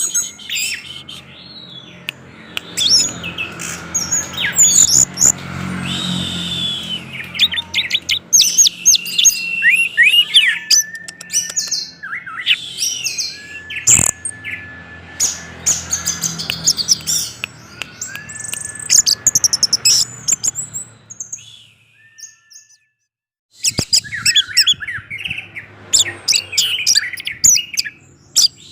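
Orange-headed thrush singing a fast, varied song of chirps, trills and whistles, with a few longer held whistles. The song breaks off briefly past the two-thirds mark, then starts again.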